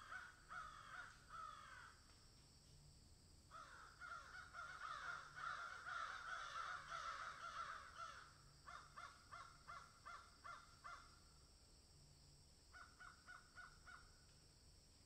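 Crows cawing faintly in runs of quick repeated caws, the calls overlapping for several seconds in the middle.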